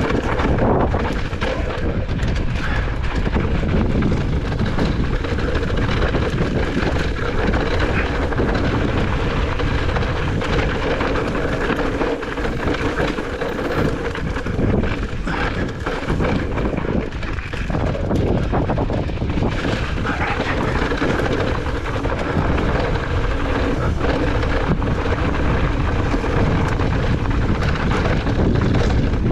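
Strong wind blasting across the microphone, loud and steady, during a fast mountain-bike descent.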